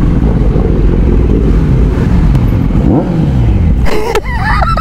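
Kawasaki Z900 inline-four engine running loud, revs rising about two seconds in and falling away over the next couple of seconds. A sudden higher-pitched sound cuts in near the end.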